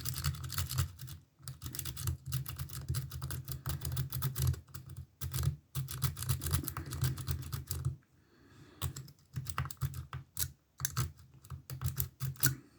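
Steel S-rake being raked in and out of a Ruko pin-tumbler lock cylinder, a rapid run of small metallic clicks as it flicks the pin stacks, with a short pause about eight seconds in. The cylinder does not open; the pins are on heavy springs.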